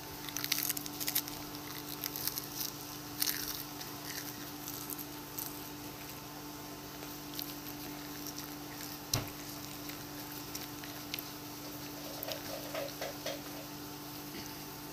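Close-mic'd chewing of crisp lettuce: crunching and wet mouth clicks, densest in the first few seconds, then sporadic. A steady low hum sits underneath.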